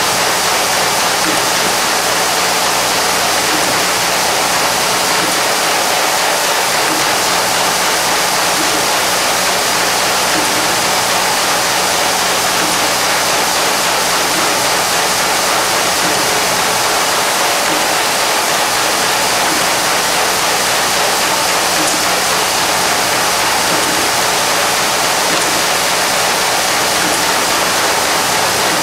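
Collated screw assembly machine and its screw bowl feeder running at full production speed: a loud, even, unbroken mechanical rush with a steady low hum beneath it.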